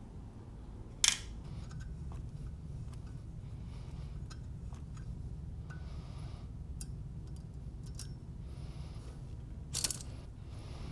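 Light metallic clicks and clinks of hand tools and small valve parts as the valves are taken out of a cylinder head with a valve spring compressor. A sharper click comes about a second in and another near the end, over a steady low hum.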